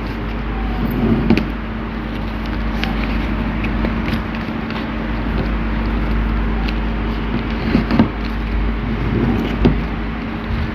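Orange paper being folded and creased by hand, with soft rustles and a few short crinkles, the clearest about a second in and again near the end. Under them is a steady background hum with a low rumble.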